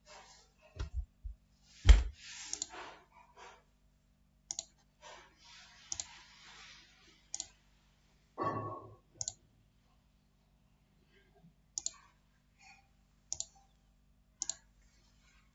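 Computer mouse clicks, scattered and irregular, with one louder knock about two seconds in.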